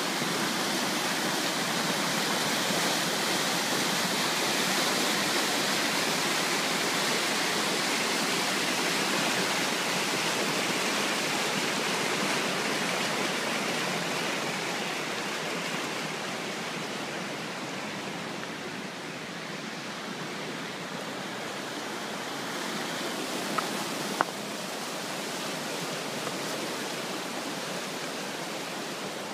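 River rapids rushing over rocks: a steady wash of white water that eases off a little about halfway through. Two brief clicks come near the end.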